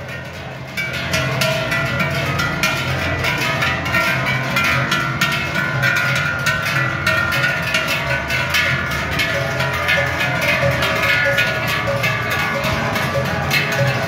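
Large brass cowbells on a line of walking cows, clanging irregularly and overlapping as the animals pass; the clanging swells in about a second in.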